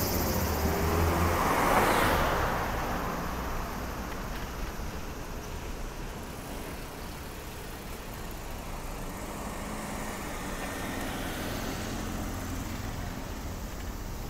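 A car passing close by, its engine and tyre noise swelling to a peak about two seconds in and then fading away, followed by a steady low rumble.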